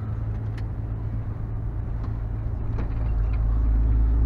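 Steady low drone of a truck's engine and road noise, heard from inside the cab while driving, growing louder about three seconds in.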